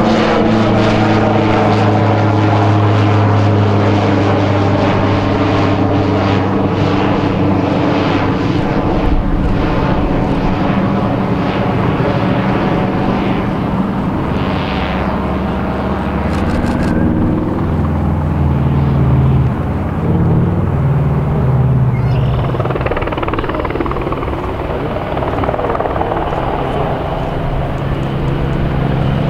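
A de Havilland Canada DHC-3 Otter's single propeller engine droning as it flies past and climbs away, its pitch falling slowly. Near the end the sound changes to the twin radial engines of a DHC-4 Caribou taking off.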